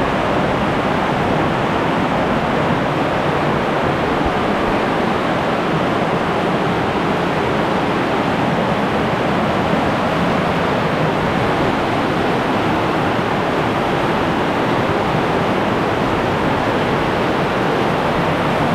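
Steady rush of fast-flowing water from a river cascading through a narrow gorge, loud and unchanging.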